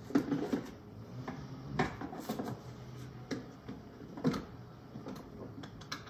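Handling noise as a vehicle seat belt is pulled through the plastic belt path of a rotating car seat base: the webbing slides and there are irregular plastic and metal clicks and knocks, about five clear ones, from the latch plate and the seat shell.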